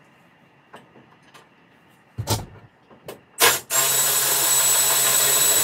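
A thump, then a Milwaukee cordless 3/8 ratchet spinning a 14 mm lower-control-arm bolt: a steady motor whir with a high whine that runs for about two seconds and cuts off.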